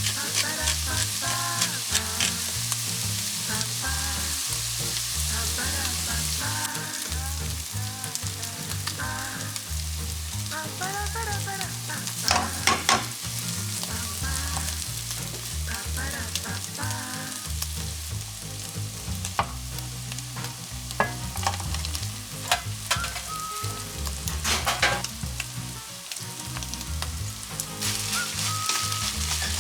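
Fried rice being stir-fried in a hot pan: a steady sizzle, with the spatula scraping and tapping against the pan many times.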